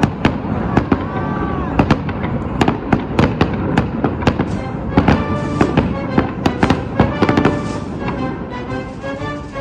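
Fireworks bursting in rapid succession, several sharp bangs a second, with music playing alongside that comes through more clearly from about halfway.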